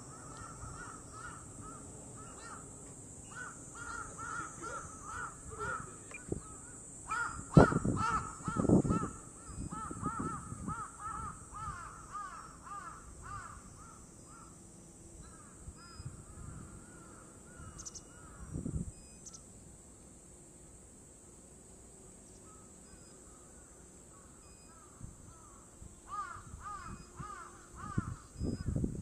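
Crows cawing over and over in runs of quick repeated calls, with a steady high hiss underneath. Strong wind buffets the microphone in low rumbles about eight seconds in.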